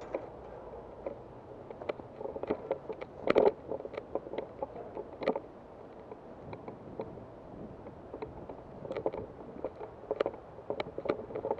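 Irregular knocks and rustles from a handheld camera being carried on foot, with footsteps and handling noise.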